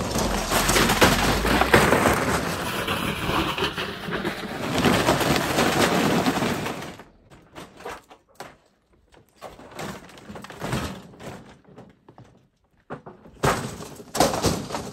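A dented metal refrigerator dragged on a tow strap across grass and gravel, a loud, continuous scraping and clattering that stops about seven seconds in. Scattered short knocks and scuffs follow.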